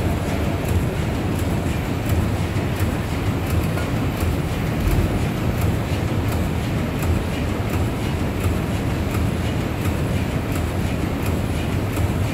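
Large steam pumping engines running in a big engine hall: a steady low mechanical rumble and clatter, with light ticks about twice a second.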